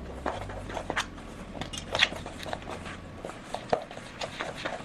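Bagel dough of flour and Greek yogurt being stirred together in a bowl, with irregular soft clicks and scrapes of the mixing against the bowl.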